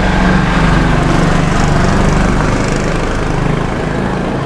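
A small motor-vehicle engine running with a steady low drone, easing off a little near the end.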